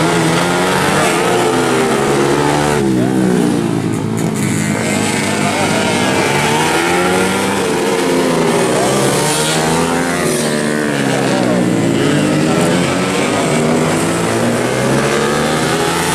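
Two-stroke road-race motorcycles, Yamaha F1ZR among them, on racing exhausts, revving hard through the gears as they pass. Several engine notes overlap, rising and falling over and over.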